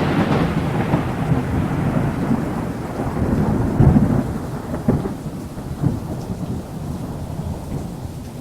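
Thunder rumbling with rain falling. The rumble slowly fades, swelling again briefly about four, five and six seconds in.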